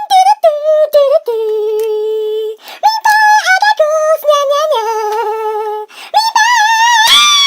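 A high-pitched voice singing a string of wordless held notes that step up and down in pitch with short slides between them, ending in a wavering vibrato note and a quick rising sweep.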